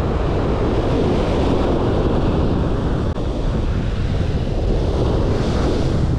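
Ocean surf washing on a sandy beach, mixed with wind buffeting the microphone; a steady, loud rush.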